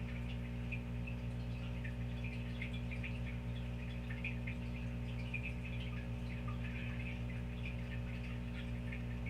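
Steady low electrical hum, with faint short high-pitched chirps scattered over it.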